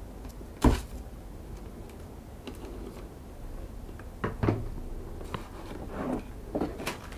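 Handling noise from a plastic drone and its remote controller in a cardboard box: one sharp knock about a second in, then a few lighter taps and rubs.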